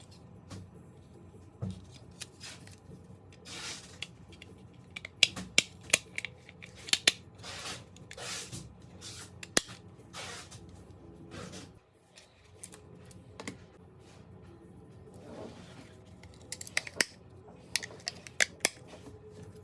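Irregular sharp clicks and snips, with a few short rustles in between and a quick run of clicks near the end.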